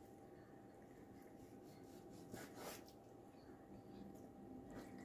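Near silence with a faint steady hum; a knife slicing raw chicken breast on a wooden cutting board gives a few faint soft cuts, the clearest about two and a half seconds in.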